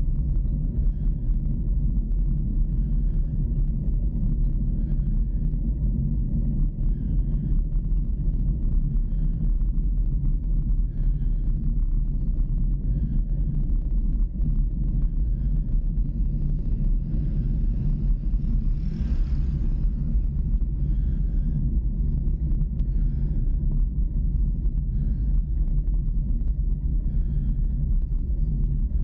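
Steady wind rumble on the microphone while riding along a road, with the vehicle's engine and tyre noise running underneath. A brief swell of hiss comes about two-thirds of the way through.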